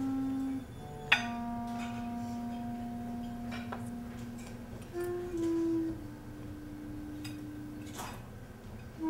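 Clarinet playing a slow line of long held notes, each lasting a second to a few seconds. Sharp clicks and taps fall between the notes, and one crack about a second in is the loudest sound.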